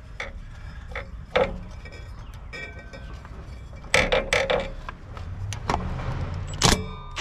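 Cordless impact wrench hammering the mower's PTO clutch bolt tight: a short burst of rapid blows about four seconds in and one brief sharp burst near the end, with clinks of metal parts between them.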